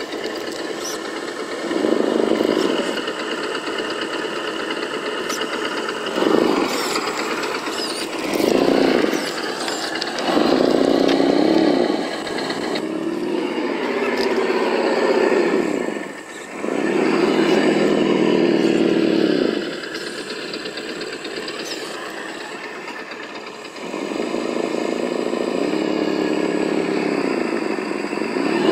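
SENSE Innovations ESS-One+ engine sound module on an Axial SCX10 RC crawler, playing a simulated engine through its speaker. It idles steadily and revs up in about seven bursts of one to three seconds as the throttle is worked, the pitch rising and falling with each one.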